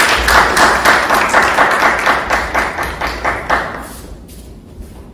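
Audience applauding, many rapid claps that die away about four seconds in.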